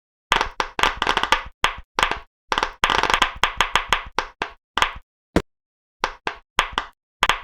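Pop-it fidget bubbles popping in quick runs of sharp clicks, with short silent gaps between the runs. One short falling tone a little past halfway.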